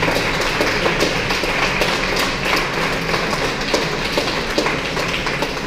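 Busy crowd noise in a hall: indistinct voices and scattered claps and taps over the steady whir of stationary exercise bikes being pedalled hard.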